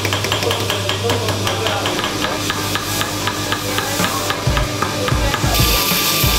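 Small hammers tapping on steel in a quick, regular rhythm, about four strikes a second: the pins of knife handles being riveted over on an anvil. Near the end, a grinding wheel hisses as a knife is held against it.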